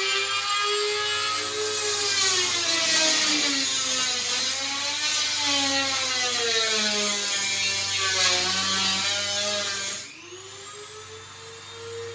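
Dremel rotary tool cutting aluminum flat stock, a high whine that sags and wavers in pitch as it is pressed into the metal. About ten seconds in it gets quieter and rises back to a steady higher pitch.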